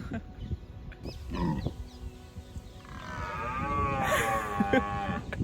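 Deer calling with deep, moo-like bellows: a short call about a second in, then a longer, wavering one from about three seconds in.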